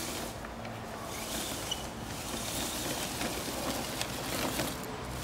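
RC Ford F-150 6x6 scale truck driving over dry leaf litter and ivy: a steady noisy rustle with a few small clicks.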